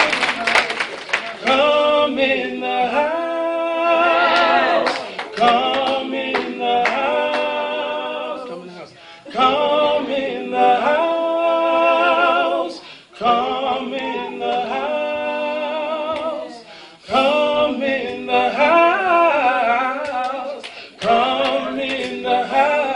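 A gospel singer's voice holding long, wavering notes with vibrato, unaccompanied, in phrases of a few seconds with short breaths between. There is a brief clatter of sharp clicks in the first second or so.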